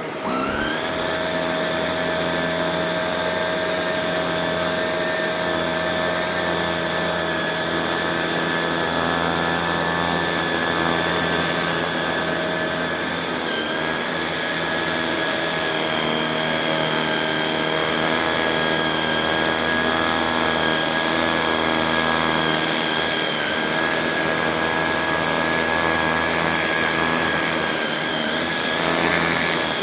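Shark Rotator Pro Lift-Away NV500 upright vacuum cleaner running on carpet with a steady high motor whine. Its pitch rises as the motor spins up at the start.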